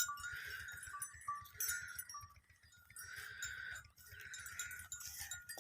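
Sheep bleating, about four calls a second or so apart, with a few faint short high tones among the first calls.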